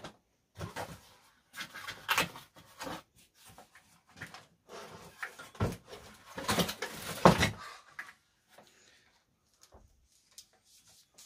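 Cardboard packaging being opened and the folded stem of an electric scooter being pulled out of it and lifted: irregular rustles, scrapes and knocks. They are loudest about six to seven and a half seconds in and thin out to a few small clicks near the end.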